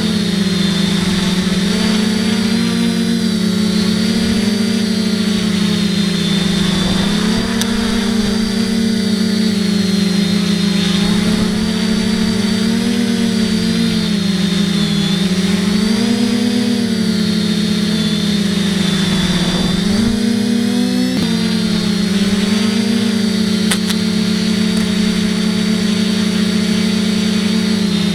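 FPV quadcopter's motors and propellers buzzing steadily, the pitch wavering up and down with throttle, with a brief dip and jump about two-thirds of the way through.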